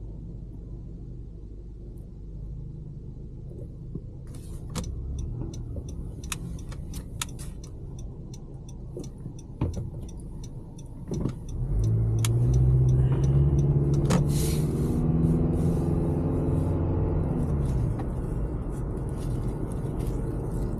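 Motor vehicle engine: a low rumble with scattered clicks, then about halfway through the engine grows loud with a steady hum that drops in pitch near the end.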